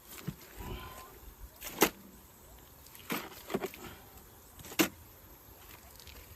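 Sharp knocks and scraping as pond mud is dug and worked into an old refrigerator used as a planter, with four or so separate knocks spread a second or more apart.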